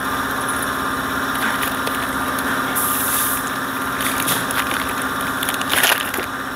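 A motor running steadily with a constant hum, with short crinkling rustles of plastic about three seconds in and again near six seconds, as parts are taken from a plastic-lined box.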